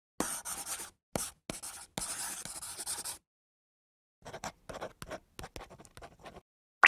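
Pen-on-paper writing sound effect: several longer scratching strokes in the first three seconds, a pause of about a second, then a run of short, quick scratches.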